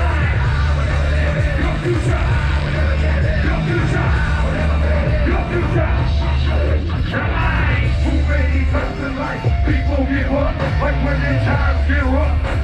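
Loud hard rock music with shouted, yelled vocals over heavy bass.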